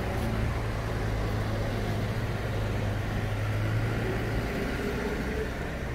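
Road traffic: a motor vehicle's engine gives a steady low hum over general road noise, and the hum drops away about four and a half seconds in.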